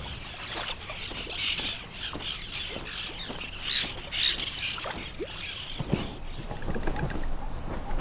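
A flock of birds calling in a dense, irregular high chatter of short calls, thinning out about five and a half seconds in. After that a steady high whine sets in, with a few low thumps near the end.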